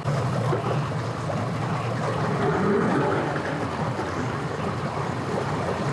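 An engine running steadily with a low rumble, under a haze of outdoor background noise.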